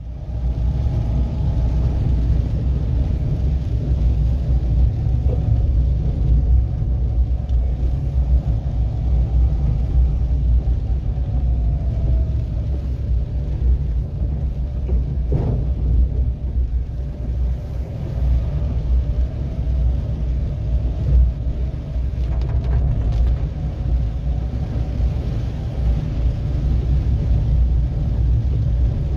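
Steady low road rumble inside a car's cabin as it drives on wet roads in the rain, with a faint wavering tone above it and a single knock about halfway through.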